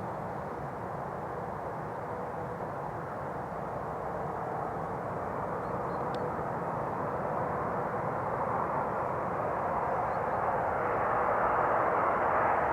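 Jet engines of an Airbus A330-300 airliner: a steady rushing noise that grows gradually louder as the aircraft comes closer.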